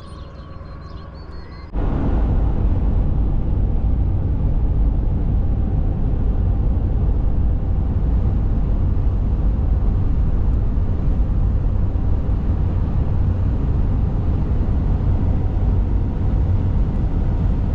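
Half-ton pickup truck driving, a steady low rumble of road and engine noise. It is quieter for the first two seconds, then cuts abruptly to a louder, even rumble.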